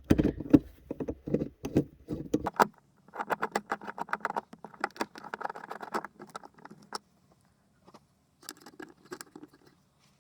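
Small metal bolts and hardware clinking and rattling as they are picked over and handled while being fitted: scattered clicks and light knocks at first, then a denser clinking rattle for a few seconds, and a short burst of it again near the end.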